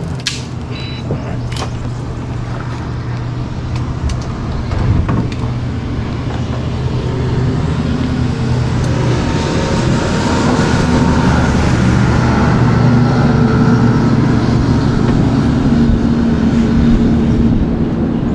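Motorboat engines running as boats pass at speed, a steady drone that grows louder over the first half and stays loud. There are a couple of sharp knocks near the start.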